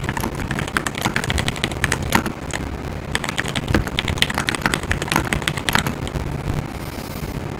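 Typing on a GMMK Pro mechanical keyboard with Everglide Aqua King linear switches: many quick keystrokes at an uneven pace.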